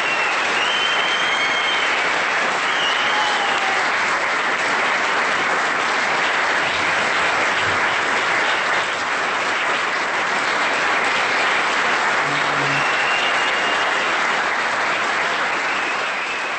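Theatre audience applauding steadily, a dense sustained clapping, with a few short high whistles about a second and three seconds in and again near the end.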